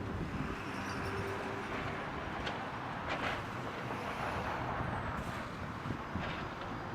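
Heavy diesel construction equipment running steadily, the excavator and dump truck at work, with a few short sharp sounds over the rumble.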